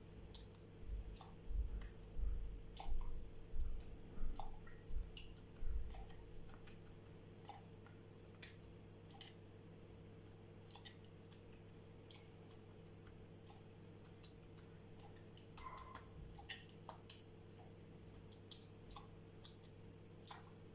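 Silicone pastry brush dabbing syrup onto a sponge cake layer and tapping against a plastic jug: scattered small soft clicks and taps, with a run of dull thumps in the first six seconds. A steady low hum runs underneath.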